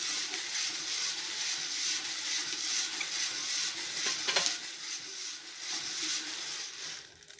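Coffee beans tumbling and crackling inside a hand-cranked metal drum roaster over a wood-fired stove. The rattle and hiss is steady and dense, then fades near the end.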